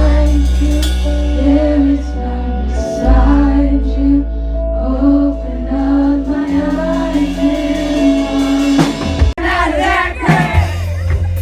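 Music with singing and a steady bass line; about nine seconds in it cuts abruptly to a different stretch of music with voices.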